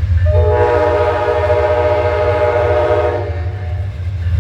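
Horn of Amtrak GE P42DC diesel locomotive 203 sounding one long blast of about three seconds, a chord of several notes, over a steady low rumble.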